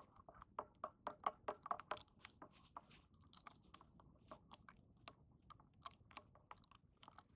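A long plastic spoon stirring hot chocolate in a steel canteen cup, giving faint, irregular clicks and scrapes several times a second.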